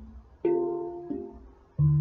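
Steeltone handpan in D minor extended, played with the fingers: three notes struck and left to ring and fade. Two mid-register notes come first, then a deep low note near the end.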